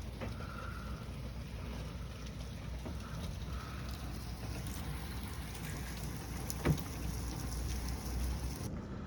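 Heavy rain mixed with hail pouring down steadily, with a low rumble underneath. A single sharp knock comes about two-thirds of the way through.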